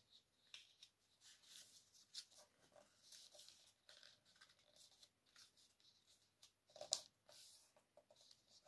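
Faint rustling and crinkling of a sheet of paper being folded and creased by hand, with one sharper crackle about seven seconds in.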